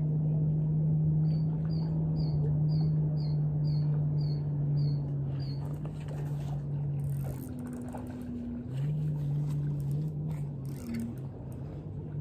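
A steady low engine drone that shifts pitch from about seven to nine seconds in, then settles back. Over it, a bird calls a run of about nine short, high chirps, about two a second, in the first half.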